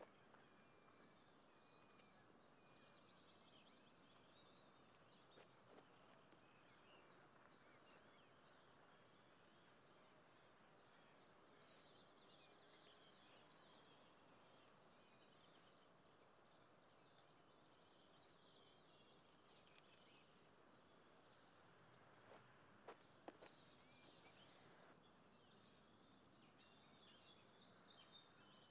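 Faint outdoor ambience: birds chirping and trilling over a steady background hiss, with a couple of soft knocks in the last third.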